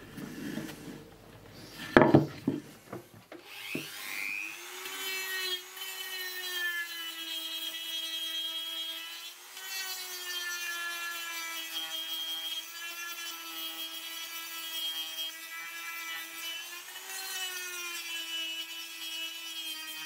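A few handling knocks, then a Dremel rotary tool switched on about three and a half seconds in, its motor whine rising to speed. It then runs steadily while its 3D-printed sanding drum sands a block of wood, the pitch wavering briefly twice.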